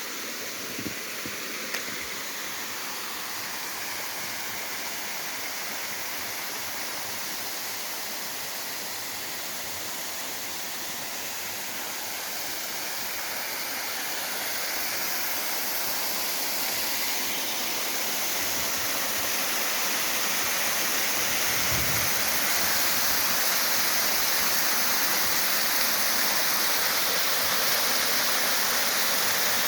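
Waterfall rushing, a steady hiss of falling water that grows louder over several seconds about halfway through. There are a couple of small knocks in the first two seconds.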